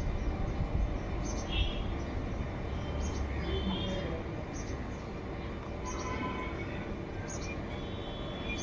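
Short, high bird chirps repeating every half second or so over a steady low background rumble.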